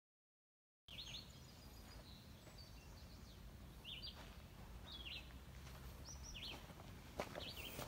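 Small birds chirping in short high calls about once a second over a faint low rumble, starting after a second of silence, with a single knock near the end.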